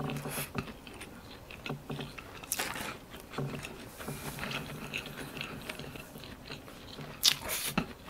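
Close-miked chewing of a mouthful of breaded chicken patty with sausage and cheese: soft irregular crunches and wet mouth clicks, with a few louder chews near the end.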